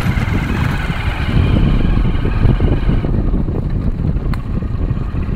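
A motorcycle riding along, its engine running under heavy wind rumble on the microphone. The higher part of the sound drops away about three seconds in, and there is a single click a little after four seconds.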